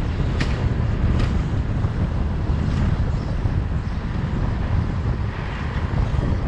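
Wind buffeting the microphone of a bicycle-mounted camera while riding, with a steady low rumble from the ride on the road. A few short sharp clicks or rattles come in the first three seconds.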